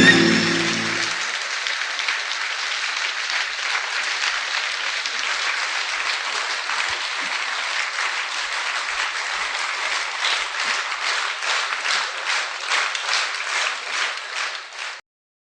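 Audience applauding: dense clapping that thins in the last few seconds so that single claps stand out, then cuts off suddenly.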